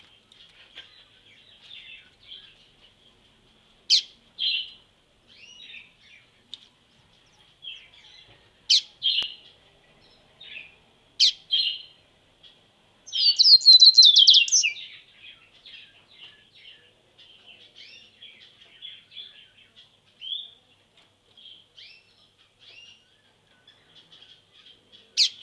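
Pet songbirds chirping and calling, with short scattered notes and a few sharp, loud single calls. At about 13 seconds in comes a quick, dense burst of song lasting about two seconds.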